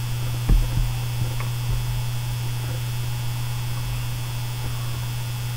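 Steady low electrical hum, with a soft thump about half a second in.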